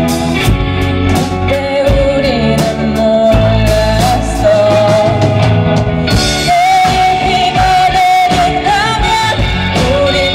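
Live rock band playing: a lead vocal sung into a microphone over electric guitars, bass guitar, keyboard and drums.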